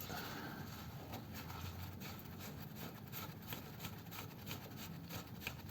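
A bolt on a Ford 100E gearbox rear mount being undone with a hand tool: a run of light, irregular clicks and scraping.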